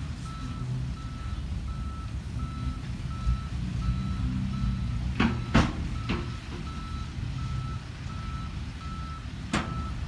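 Diesel dump trucks rumbling at a land fill while a reversing alarm beeps steadily, about one and a half beeps a second, stopping near the end. Several sharp knocks come about five to six seconds in and once more near the end.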